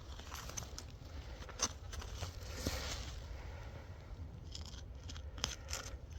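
A digging tool scraping and knocking in dirt, with a few short sharp knocks among soft scrapes.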